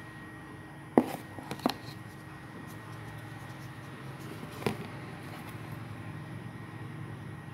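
Plastic massage-gun attachment heads clicking and knocking as they are handled in their cardboard box: a sharp click about a second in, another just after, and one more near the middle, over a steady low hum.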